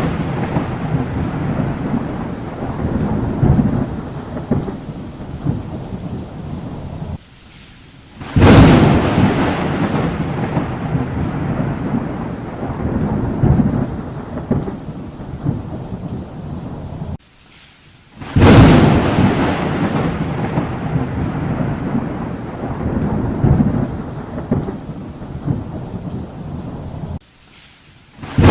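Thunder over rain. Each thunderclap hits suddenly, rumbles on and fades, then breaks off abruptly into a second of near quiet before the next. The pattern repeats about every ten seconds.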